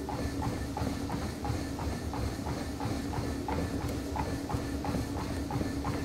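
Running footfalls pounding a treadmill belt at about three steps a second, over the steady hum of the treadmill's motor.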